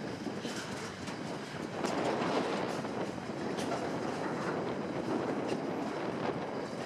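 Freight train wagons rolling past at low speed, their wheels clicking steadily over rail joints.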